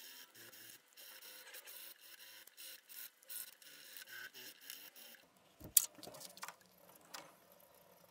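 Quiet scratchy strokes of abrasive paper rubbed by hand over a laminated wengé, teak and cork knife handle clamped in a vise, several strokes a second. About three-quarters of the way through the sanding stops and a single sharp click is followed by a couple of softer knocks.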